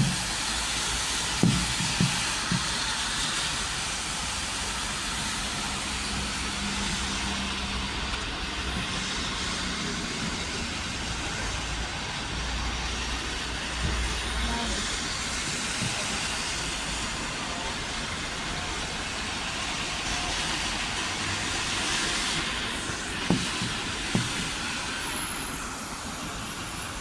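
Steady hissing background noise with no siren sounding, broken by a few faint short knocks about two seconds in and again near the end.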